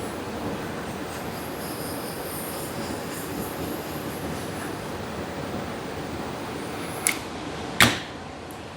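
Handheld torch flame hissing steadily while shrinking heat-shrink tubing over a battery cable end. Two sharp clicks near the end, the second louder, after which the hiss is a little quieter.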